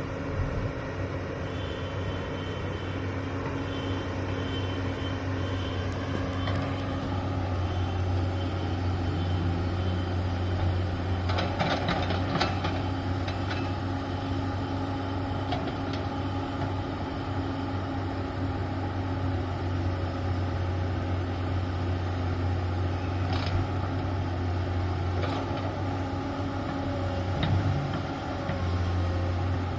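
Heavy diesel construction machinery, an excavator and dump truck, running steadily with a deep engine drone, broken by a few metallic clanks and knocks: a cluster near the middle and a couple more later on.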